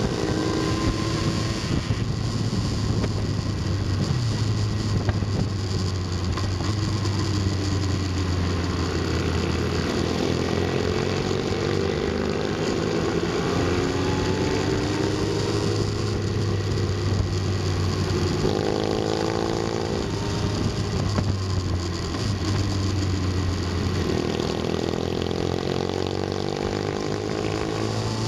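Motorcycle engine running on the move, its pitch climbing for several seconds at a time and then dropping as gears change, with wind rush on the microphone.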